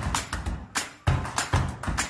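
Music with a quick, regular percussive beat: sharp strikes, each with a heavy low thump.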